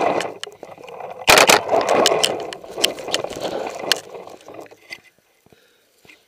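Cloth scraping and rustling against the microphone of a camera held under a jersey, with sharp clicks and one loud knock about a second in. It dies away near the end.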